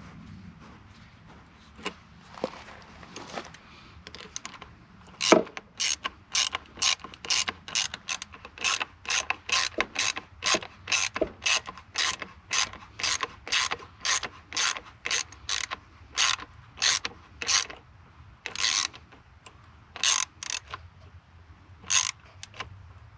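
Hand ratchet tightening the clamp that holds a muffler onto a diesel heater's exhaust pipe: a few single clicks, then short bursts of ratchet clicks about two strokes a second, and a few slower strokes after a short pause near the end.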